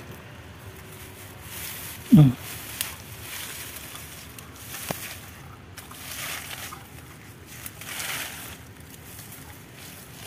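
Dry grass and leaf litter rustling in repeated swishes as a wooden stick rakes and pokes through it, with a few light clicks. A short voice sound, the loudest thing, about two seconds in.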